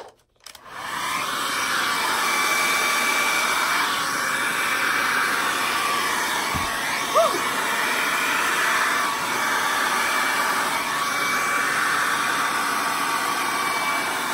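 Handheld hair dryer switched on about half a second in, then running steadily as it blows wet acrylic pour paint across a canvas. A steady rush of air carries a faint motor whine.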